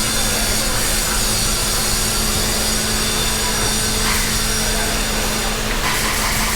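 Steady din of an RV factory's production floor: a constant machinery hum with a high whine and hiss over it. Short harsher patches of noise come about four and six seconds in.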